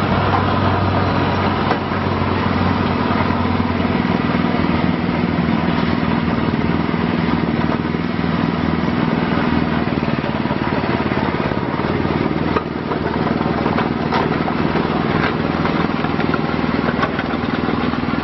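Diesel engine of an IHI IS7GX mini excavator running steadily. Its note shifts about four seconds in.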